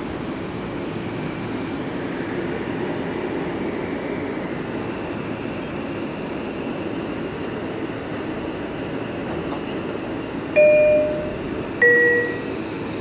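Kawasaki M9 commuter train standing at a platform, its on-board equipment giving off a steady hum. Near the end, its speakers sound a two-note descending chime, the second tone lower, just ahead of an automated station announcement.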